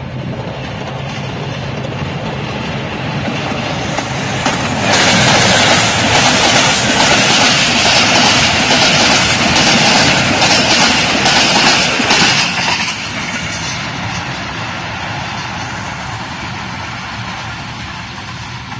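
Hitachi HBU-20 diesel locomotive approaching with a steady engine drone. About five seconds in, the passenger coaches pass close by at about 100 km/h with a loud rushing rattle and clatter of wheels that lasts some eight seconds. The sound then drops suddenly and fades steadily as the train moves away.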